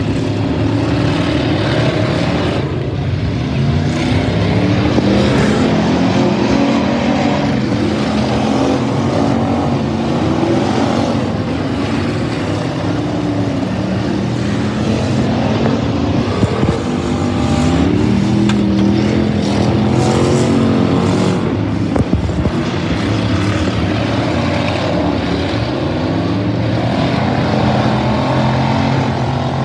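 Several stock race car engines revving up and down in turn as they run laps of a dirt figure-8 track, the pitch repeatedly climbing and dropping. A couple of sharp knocks stand out about halfway through.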